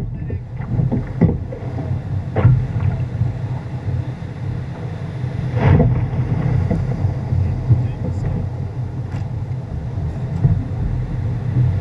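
Wind buffeting an action camera's microphone aboard a surf boat being rowed through the surf, with rushing water and a few sudden louder moments, the biggest about two and a half and six seconds in.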